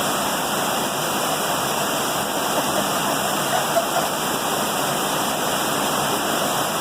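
Steady rush of water from a heavy downpour and flash flooding, an even roar of rain and running water with no pauses.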